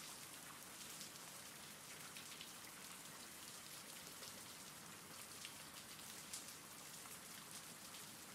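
Faint steady rain from a rain-sounds ambience bed: an even hiss with scattered light drop ticks.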